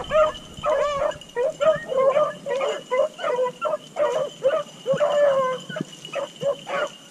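A pack of beagles baying in quick overlapping yelps, with one longer drawn-out bay about five seconds in: hounds giving tongue as they run a rabbit.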